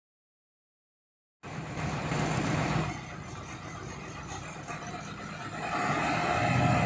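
Silence for about a second and a half, then a large bus's engine running as the bus pulls slowly into the yard, growing louder near the end.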